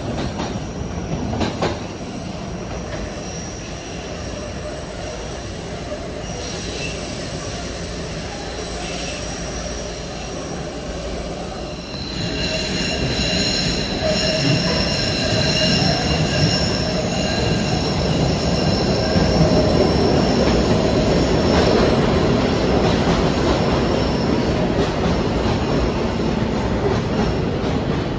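SEPTA Market-Frankford Line subway trains. A steady rumble of steel wheels on rail with a few clicks near the start; from about twelve seconds in it grows louder, with a high multi-tone wheel squeal that holds over the rumble as a train runs in along the platform.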